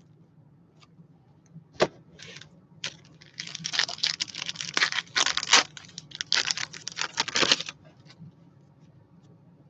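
Plastic wrapping on a trading-card box and its packs being torn open: a single click, then about four seconds of crinkly tearing in quick strokes.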